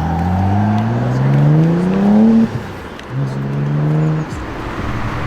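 Audi RS4 B5's twin-turbo V6 revving: the engine note climbs steadily for about two and a half seconds and cuts off sharply. About half a second later comes a second, shorter rev held at one pitch for about a second, which also cuts off.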